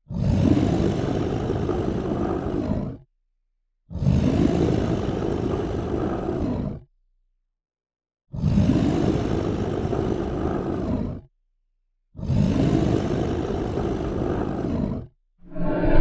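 Monster roar sound effects: four separate growling roars, each about three seconds long, with dead silence between them, and a fifth, more tonal one starting just before the end.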